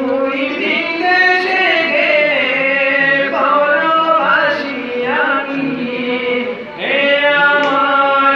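A man's solo voice singing a Bengali patriotic song with no instruments, in long held notes with gliding ornaments. There is a brief break about two-thirds through before the next phrase.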